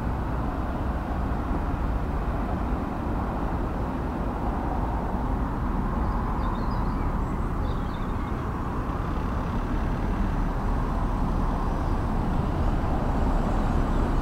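Steady low outdoor background rumble, with a few faint high chirps about halfway through.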